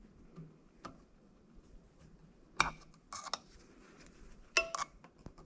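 Snap ring pliers working the piston snap ring out of a Toyota Land Cruiser 80-series brake master cylinder bore: a handful of separate sharp metallic clicks and clinks, steel tool on steel ring and cast body.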